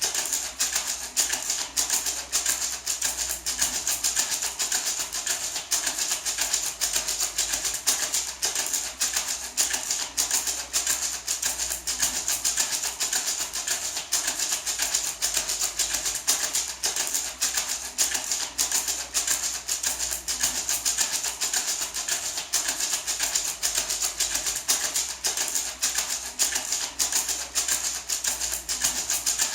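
Small handmade gourd maraca shaken continuously in a fast, even rhythm: a steady, dense rattling.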